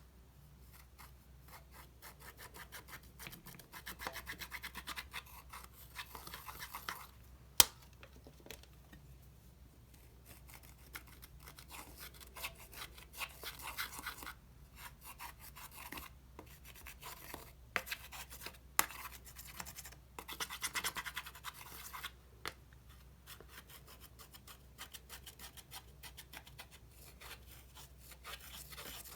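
Slime being worked and folded, making sticky squishing with dense fine clicks and crackles that come and go in patches, and one sharp click about seven and a half seconds in.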